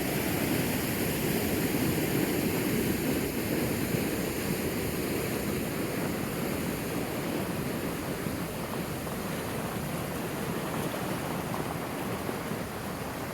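Arroyo flash-flood water rushing steadily over a road crossing, a continuous noisy rush that grows slightly quieter over the stretch.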